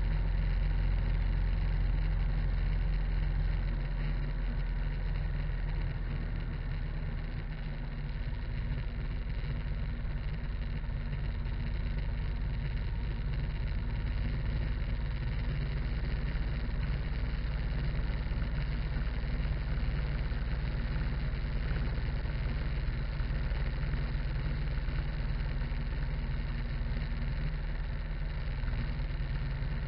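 Harley-Davidson motorcycle's V-twin engine running at steady cruising speed, a low rumble mixed with tyre and road noise from the moving bike.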